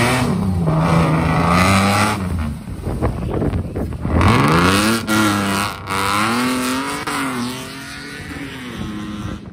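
Off-road competition vehicle's engine revving hard, its pitch rising and falling. It drops away about two seconds in, picks up again about four seconds in, and fades near the end.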